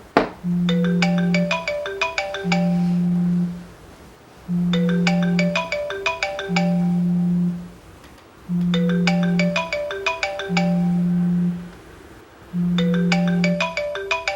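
Phone alarm ringtone playing a looping marimba-like melody: a low held note about every two seconds under quick, bright mallet notes, the whole figure repeating every four seconds. There is a sharp click right at the start.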